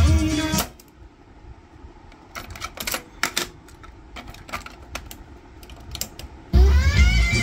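Vintage Pioneer cassette deck: music playing through it stops about half a second in, followed by sharp mechanical clicks and clacks of the piano-key transport and the cassette being handled in its well. Near the end a key is pressed and the music starts again, briefly sliding up in pitch as the tape comes up to speed.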